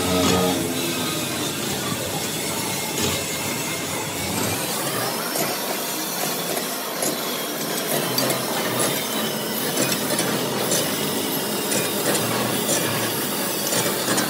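Large manual lathe running, turning a big spoked iron gear blank, with a steady mechanical noise and faint regular ticks as it machines the gear.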